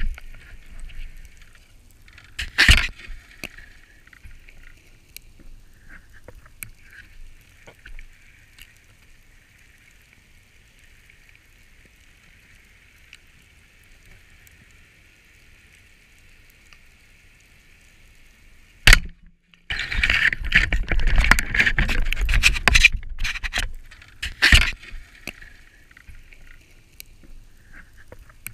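Underwater, a speargun fires with one sharp, loud crack about two-thirds of the way in. About a second later come some three seconds of loud clattering and rushing noise as the shot plays out. Before the shot there is only a faint steady hiss with a few scattered knocks.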